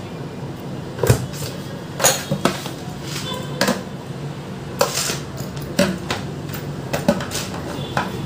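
Kitchen dishes and utensils clattering as they are handled, about nine sharp knocks at uneven intervals.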